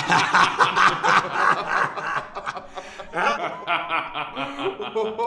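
Three men laughing together, loudest over the first couple of seconds, then quieter chuckles that pick up again later.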